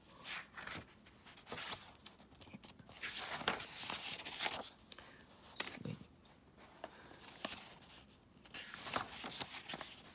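Paper rustling and crackling as a paperback picture book's cover is opened and its pages are turned by hand, loudest in the middle and again near the end.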